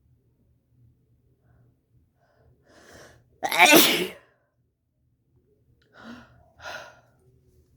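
A person's forceful sneeze about halfway through, led in by a short, softer inhaling build-up, with two brief breathy sounds after it near the end.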